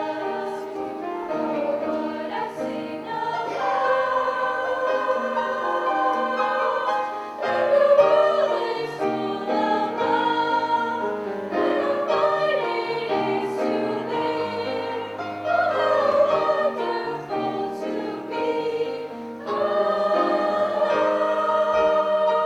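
A vocal ensemble singing in several parts, holding sustained chords that change every few seconds.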